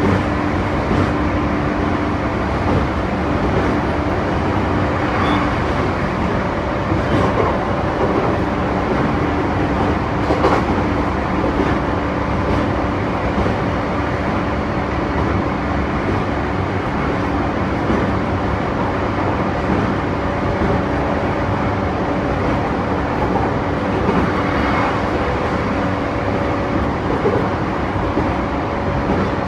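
E235-1000 series electric train running at speed, heard from inside the passenger car: a steady rumble of wheels on rail with a few light knocks. Over it runs a steady hum from the drive, which drops out for a few seconds about five seconds in.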